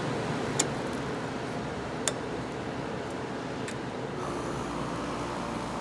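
Vintage Chrysler Airtemp window air conditioner running: a steady rush of fan and air noise with a couple of sharp clicks, and about four seconds in the sound changes to a steadier hum with a low tone.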